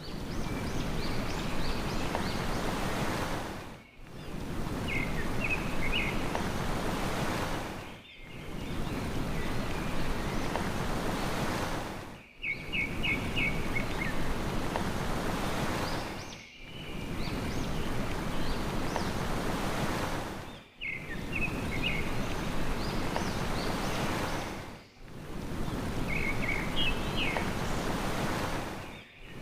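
Sea surf making a steady wash of noise, with small birds giving short bursts of quick high chirps. The sound cuts out briefly about every four seconds and starts again, the same short stretch repeating.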